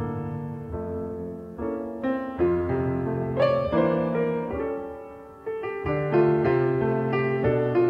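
Piano music: chords and melody notes struck and left to ring out.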